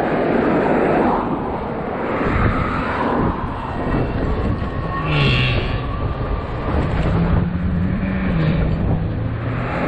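Wind rushing over the action camera's microphone and road noise while riding an electric bicycle, a continuous low rumble. A low hum comes in about halfway through and steps up and down in pitch.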